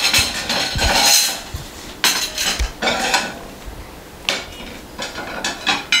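Metal utensil clinking and scraping against a stainless steel pot as food is dished out, in irregular bursts with short pauses between.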